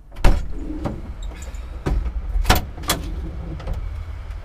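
Van rear doors unlatched and swung open with a loud clunk, followed by a few more knocks as gear is handled in the back of the van, over a low steady outdoor rumble.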